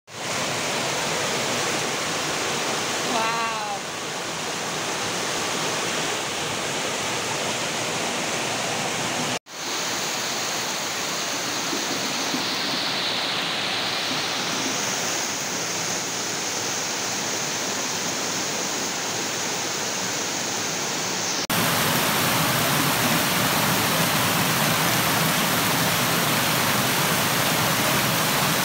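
Rainwater from a downpour rushing in a flood over a cobbled street and cascading down stone steps: a steady rushing of water. About two-thirds of the way through it becomes louder and fuller.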